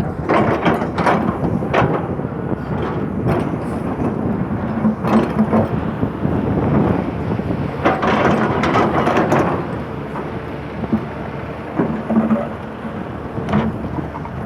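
Hydraulic excavator working, its diesel engine running under load with a steady low drone, over repeated knocks, scrapes and crunches of material being dug or moved, busiest about eight to nine seconds in.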